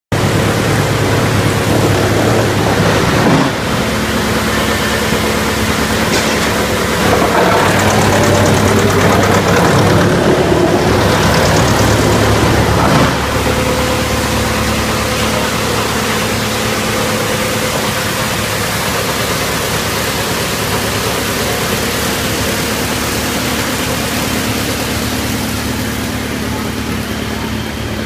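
Drum wood chipper running with a loud, steady machine drone. It turns louder and rougher for several seconds near the middle, then settles back to an even drone.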